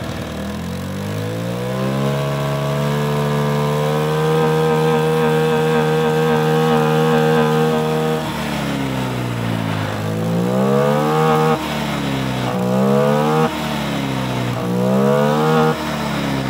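A Honda Vario scooter's single-cylinder four-stroke engine is revved up and held at high revs for several seconds. It then drops back and is blipped three times, each rev cutting off sharply as the throttle snaps shut. This is the revving stage of a carbon-cleaner tune-up sprayed into the intake.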